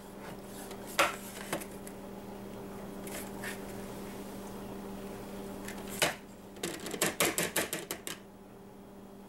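Ceramic coffee mug and plate knocking together as a mug cake is flipped out onto the plate. A few separate knocks come first, then a louder one about six seconds in, then a quick run of about ten taps over a second and a half, all over a steady low hum.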